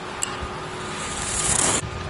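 Ski edges carving on hard-packed snow through a giant slalom turn: a hissing scrape that grows louder over about a second and then cuts off abruptly. A short sharp tick comes just after the start.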